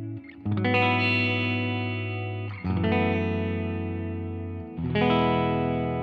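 PRS SE Custom 22 Semi-Hollow electric guitar with both 85/15 S humbuckers selected, playing a clean tone: three full chords strummed about two seconds apart, each left to ring out and fade before the next.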